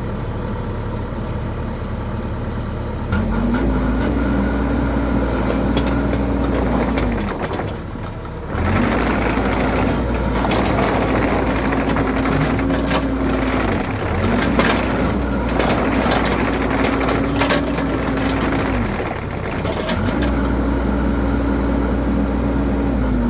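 Cat 304 mini excavator running while it travels on its tracks in four spells. Each time the travel pedals are pushed, a loud hydraulic whine rises, holds, and falls away again as the machine stops, with rattling and clanking from the tracks in between.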